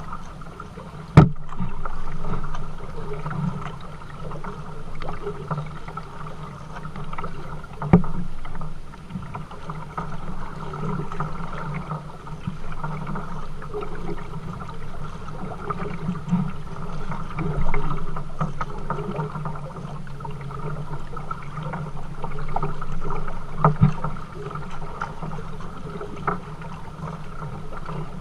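Kayak being paddled on a river: steady water and paddle noise that swells and fades with the strokes, broken by three sharp knocks.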